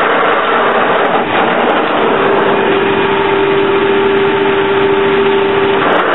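Soviet 1K62 screw-cutting lathe running, a steady noise of motor and gearbox. A whine sets in about two seconds in, holds steady and cuts off near the end.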